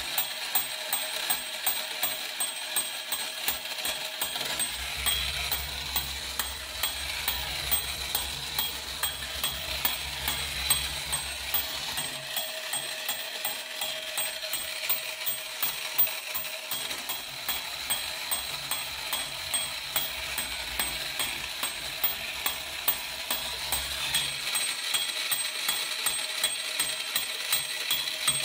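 Vintage Horikawa tin-plate toy fire engine, powered by two C batteries, running. Its small electric motor whirs while the gears click rapidly and steadily as the toy drives and swings its ladder.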